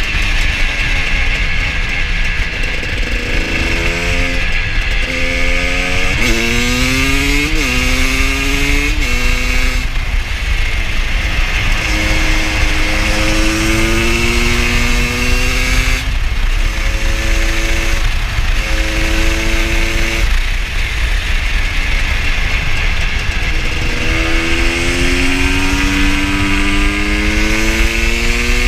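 KTM 250 supermoto motorcycle engine pulling through the gears. Its pitch climbs, then drops back at each upshift, in several runs of acceleration. A steady rushing noise runs underneath.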